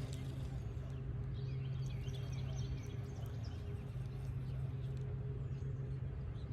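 Songbird giving a series of short, quick, falling chirps over a steady low rumble.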